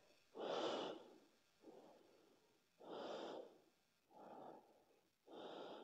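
A woman breathing slowly and audibly while resting, close to the microphone: three breath cycles, each louder breath followed by a softer one.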